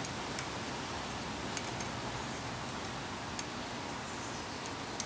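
Steady hiss of outdoor background noise, with a few faint, scattered clicks.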